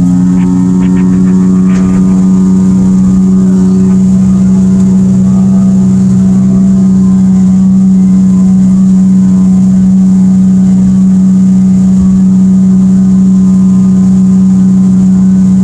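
Evinrude E-TEC 115 two-stroke outboard running under load at a steady planing speed, a loud, even engine drone that holds one pitch.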